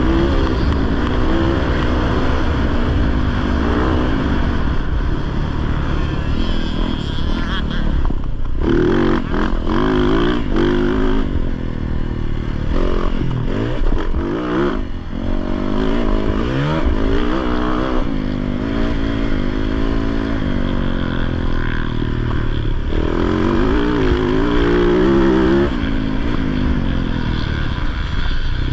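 Off-road race motorcycle engine revving up and down continuously under hard riding, its pitch climbing and dropping again and again as the throttle is worked and gears change.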